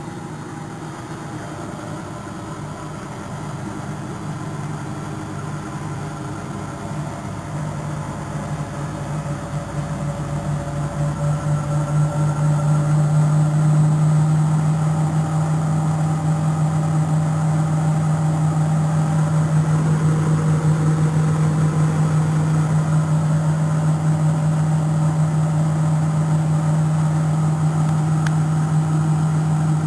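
Neff washing machine on a test spin at 1000 rpm. The drum and motor hum grows louder as the spin speeds up over about the first twelve seconds, then holds a steady high-speed spin.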